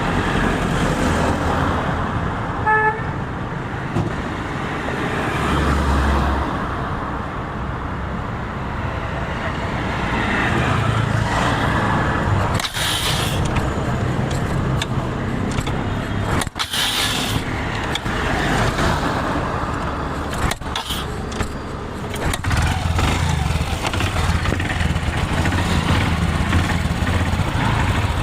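Motorcycle engine running steadily, with street traffic around it and a short horn toot about three seconds in.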